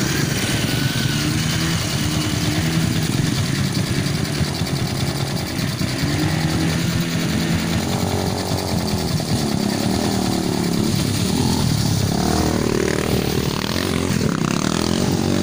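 Dirt bike engines running and revving, the pitch rising and falling again and again as the motorcycles ride past.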